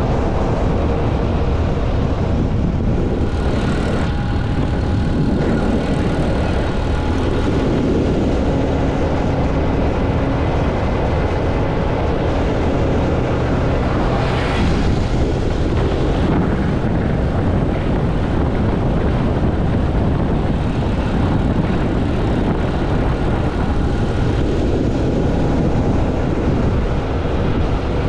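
Motorcycle riding along, its engine running steadily under a heavy low rush of wind on the microphone.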